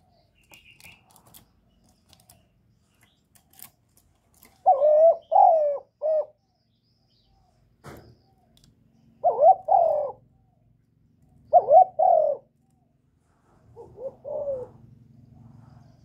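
Spotted dove cooing. There are four short phrases of two or three coos each, about two to three seconds apart, and the last one is softer. A few faint clicks come in the first seconds.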